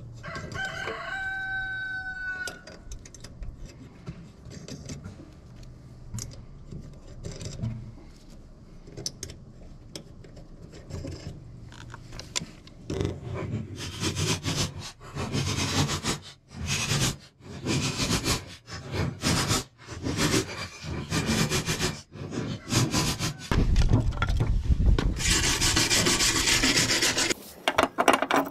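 Cordless DeWalt 20V Max impact driver hammering in a series of short bursts from about halfway in, then one longer run of a few seconds near the end. It is driving the nuts that hold a new mower deck spindle.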